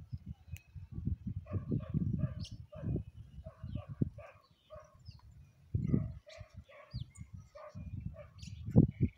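Faint, short animal calls repeating a few times a second, over gusts of wind rumbling on the microphone; the loudest gust comes near the end.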